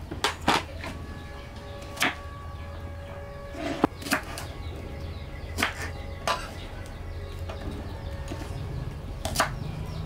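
Knife cutting shallots on a wooden chopping board: irregular sharp taps and knocks of the blade and the bulbs on the wood, a second or more apart, over a faint steady hum.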